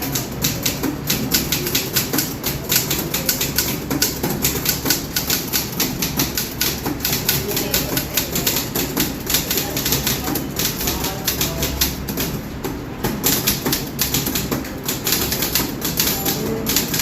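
Fast typing: a rapid, continuous stream of key strikes, several a second, with a brief let-up about two-thirds of the way in.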